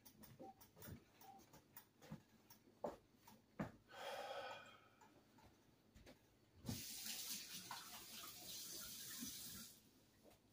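Kitchen sink faucet running for about three seconds as hands are rinsed, then shut off, after a brief sound about four seconds in.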